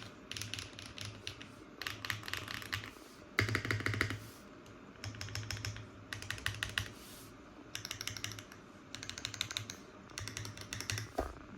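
Typing on a Cyberboard R3/R4 mechanical keyboard built for a clacky sound: HMX Xinhai switches in an aluminium plate with no foam, under GMK keycaps. About eight short bursts of rapid keystrokes come with brief pauses between them.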